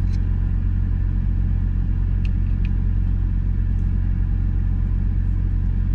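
Idling semi truck heard from inside the cab: a steady, unchanging low rumble. Two light clicks a little over two seconds in.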